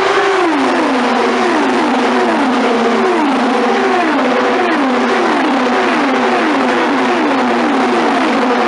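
A pack of IndyCars, 2.2-litre twin-turbo V6 racing engines, passing one after another at speed, each engine note dropping in pitch as it goes by. More than a dozen pass-bys overlap into a loud, continuous wall of sound.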